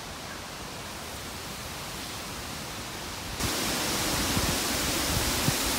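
Steady outdoor background hiss with no distinct source, which steps up abruptly and grows brighter about three and a half seconds in, with a few faint low knocks after.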